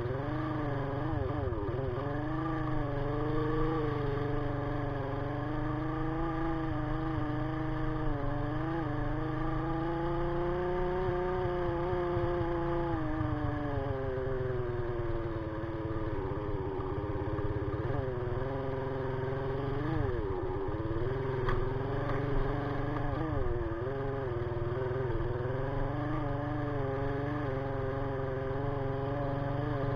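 Sigma 250cc motorcycle engine running while being ridden, its pitch rising and falling with the throttle: it holds high and steady for a few seconds near the middle, drops off, then wavers up and down.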